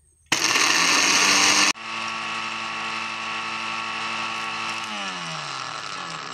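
Small electric blender grinding Oreo cookies into crumbs. A loud, rough grinding cuts off abruptly, then the motor runs with a steady whine that falls in pitch about five seconds in as it winds down.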